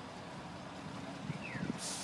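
Heavy truck engine running at a low, steady rumble, with a sudden burst of hiss near the end.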